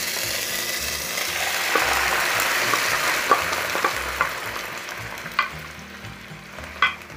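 Brown rice frying in hot oil in a pot, sizzling steadily while it is stirred, with a few sharp clicks of the spoon against the pot; this is the rice being toasted before water is added. The sizzle fades over the last couple of seconds.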